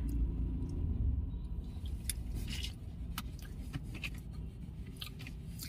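Steady low rumble inside a car's cabin with a few faint scattered clicks; the rumble is strongest in the first second or so.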